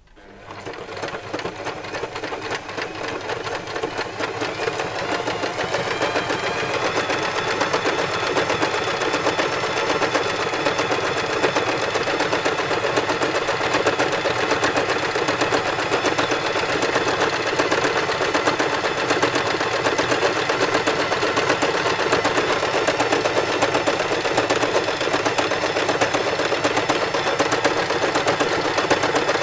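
Sewing machine stitching continuously. It builds up speed and loudness over the first few seconds, then runs at a steady fast rate.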